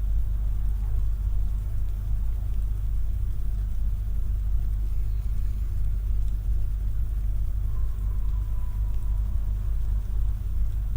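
Steady low rumble, with a faint thin tone briefly about eight seconds in.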